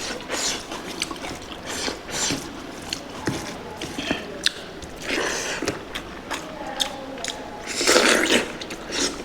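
Close-up eating sounds of a spicy pork curry being chewed: wet smacks and many small clicks, with a couple of longer noisy bursts of chewing about five and eight seconds in.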